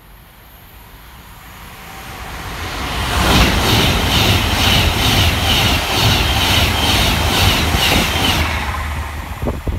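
Avanti West Coast Class 390 Pendolino electric train passing through without stopping. The noise grows as it approaches, then comes a loud rush of wheels on rail with a regular clatter about three times a second as the carriages go by, fading near the end.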